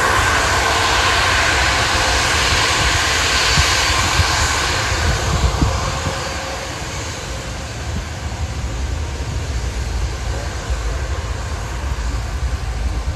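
Airbus A330-300's Rolls-Royce Trent 700 jet engines at taxi power as the airliner rolls past: a steady whine over a loud hiss. The sound is strongest for the first five seconds and fades after that as it moves away.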